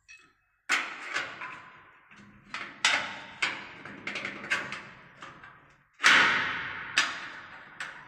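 A metal rod clamp knocking and scraping against a machine's steel frame as it is hooked into place: a handful of sharp clanks, each with a short ringing fade, the loudest about six seconds in.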